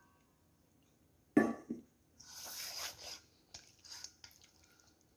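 Raw chicken strips being put into a stainless steel bowl and handled: a knock against the bowl about a second and a half in, then a short wet rustling and a few soft clicks.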